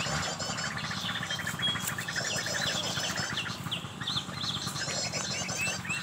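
Sunbirds calling: a fast, high chattering song in short runs, mixed with repeated sharp upward chip notes.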